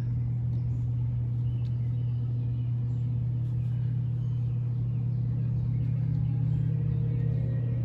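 A steady low rumble, even in level throughout.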